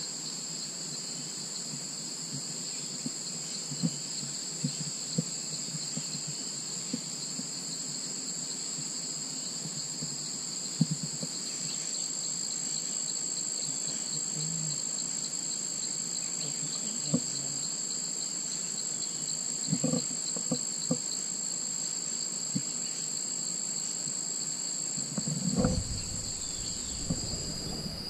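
Steady insect chorus in forest, a continuous high shrilling at two pitches, with scattered small clicks and knocks and a short low rumble about 25 seconds in.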